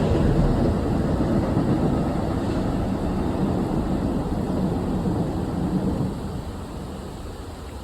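Train rumbling past on the tracks, with a low noisy rumble that fades as it moves away and drops off about six seconds in.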